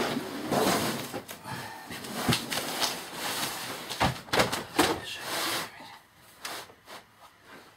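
A large flexible sheet scraping and rustling as it is tipped over and laid back down flat on a table frame, with several sharp knocks around the middle. It goes quieter for the last couple of seconds.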